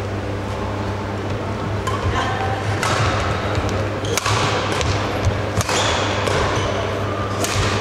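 Badminton rally: rackets striking the shuttlecock, about four sharp hits a second and a half or so apart, over a steady low hum.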